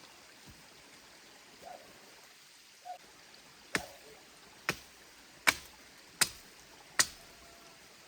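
Stream running steadily, with five sharp knocks in the second half, evenly spaced a little under a second apart, like something being struck in a steady rhythm.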